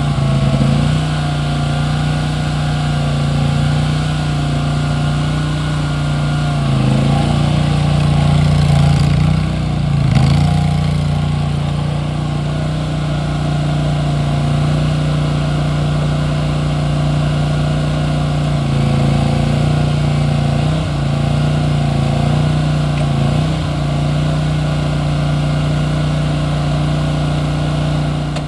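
2008 Boxer 427W mini skid steer's engine running steadily, its pitch dipping briefly a few times.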